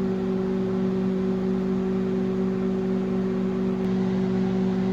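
Microwave oven running, a steady low hum with a few constant tones, while it heats a bowl of oats and water.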